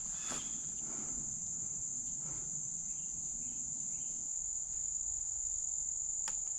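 A chorus of insects trilling in one steady, unbroken high-pitched drone.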